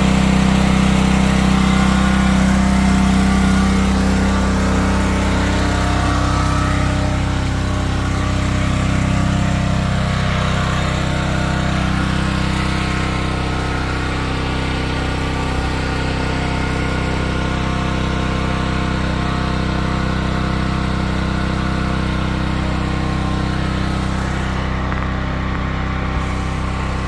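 A small engine or motor running steadily, its pitch shifting slightly about six and again about ten seconds in.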